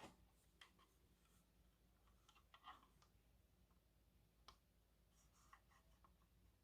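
Near silence with a few faint, scattered clicks of hands handling a plastic carbon monoxide alarm; the alarm itself is not sounding.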